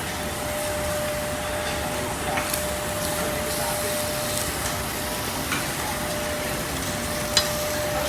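Pork belly sizzling on a samgyupsal tabletop grill: a steady sizzling hiss with a faint steady hum and a couple of light clicks, one a few seconds in and one near the end.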